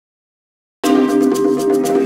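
Silence, then about a second in music starts suddenly: sustained pitched notes over a fast, steady ticking percussion beat.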